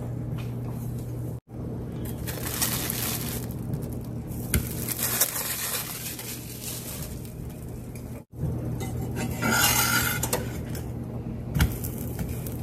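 A metal spatula scraping and clicking against a cast-iron skillet as a dry-cooking corn tortilla is lifted and turned, with a scraping stretch a little past the middle. A low steady hum runs underneath.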